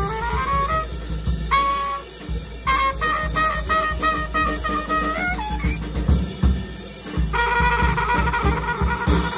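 Trumpet and drum kit playing together live. The trumpet slides up, then plays short phrases and a long held note near the end, over busy drumming.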